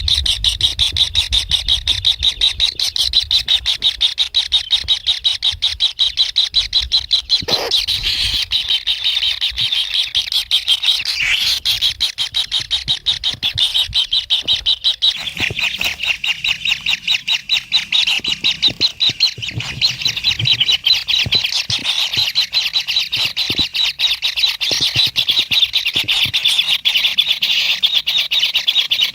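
Kingfisher chicks begging for food in the nest: a rapid, continuous churring of many short calls.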